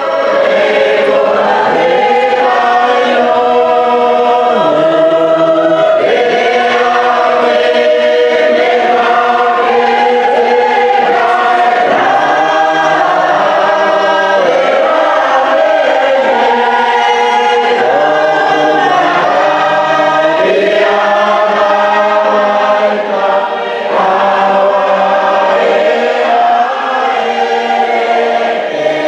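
Choir singing a hymn, several voices together, in one continuous stretch of held notes.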